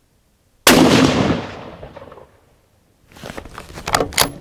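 A single rifle shot from a Steyr Scout .223 Remington bolt-action rifle, a sudden loud crack about a second in that dies away over a second and a half. Then a run of sharp metallic clicks from about three seconds in as the bolt is worked to chamber the next round.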